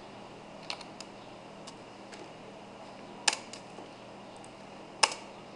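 Scattered single clicks of computer keyboard keys and a mouse, the two loudest about three and five seconds in, over a steady faint hum.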